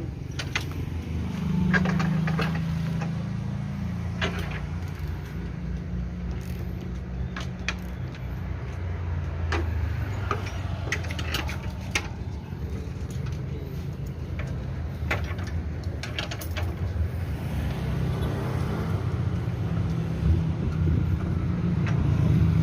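Road vehicle engines running steadily, a low rumble that swells at about two seconds in and again near the end, with scattered short clicks and knocks.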